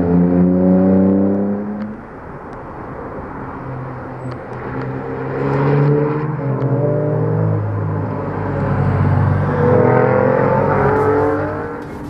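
Car engine driven hard on track, its pitch climbing under acceleration and falling off several times as the driver lifts and changes gear.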